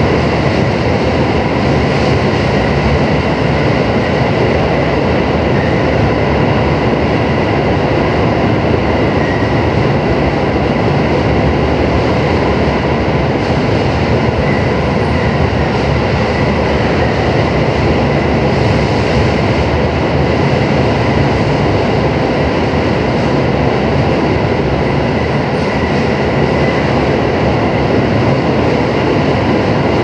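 Steady running noise of a JR 221-series electric train heard from inside the passenger car: wheels on rail with an even rumble and a faint steady high whine, the train running at reduced speed.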